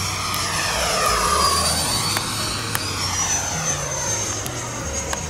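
90 mm electric ducted fan of an FMS Super Scorpion RC jet whining as the jet makes a fast pass. The whine falls in pitch as it goes by, loudest about a second in, then rises a little and holds steady.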